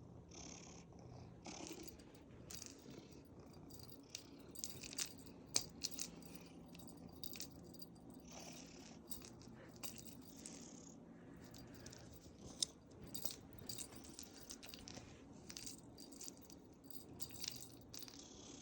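Faint cat purring, with scattered small clicks and rattling ticks throughout, a few sharper ones standing out.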